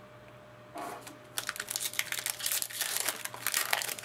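Foil wrapper of an SPX hockey card pack being torn open and crinkled by hand: a dense run of crackling that starts about a second and a half in.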